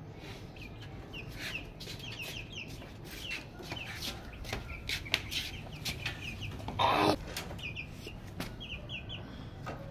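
Young chicks peeping: short, high, falling cheeps in quick runs of two or three, over and over. About seven seconds in, a brief scraping clatter.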